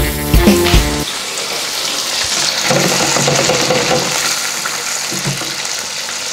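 Background music with a beat stops about a second in, leaving the steady sizzle and bubbling of breaded chicken hearts deep-frying in an electric deep fryer's oil, on their first fry at about 160 °C.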